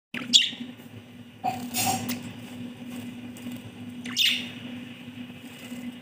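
Budgerigars chirping: two short, sharp calls, one just after the start and one about four seconds in, with a brief rustling burst around a second and a half in, over a steady low hum.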